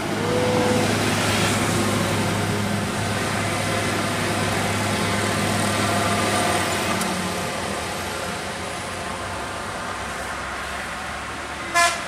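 Mercedes-Benz OH 1626 tour bus's diesel engine running as it drives past and pulls away, its sound slowly fading. A brief horn tone sounds just after the start, and a short, loud bus horn toot sounds near the end.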